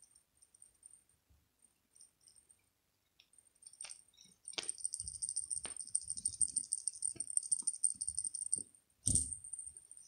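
Small bell inside a pom-pom toy ball jingling as a cat bats and bites it. The jingling is faint and broken at first, then rapid and continuous for about four seconds from the middle, with a few soft knocks and a thump near the end.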